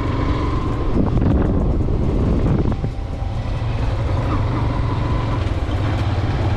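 Motorcycle engine running at a steady low hum while riding along, with wind rushing over the microphone.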